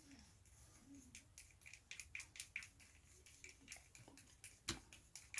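Faint, irregular light clicks of a thin brush handle stirring paint in a small plastic mixing cup, with one sharper click near the end.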